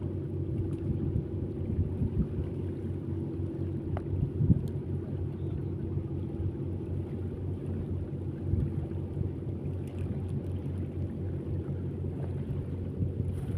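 An engine running steadily at a constant speed, a low even hum, with wind buffeting the microphone.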